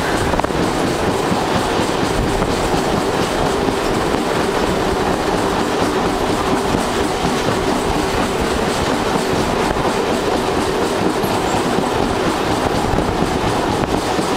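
Indian Railways passenger trains running on the tracks: a steady, loud rumble of wheels on rail with clickety-clack over the rail joints, heard from aboard a moving train as another train's coaches pass on the next track.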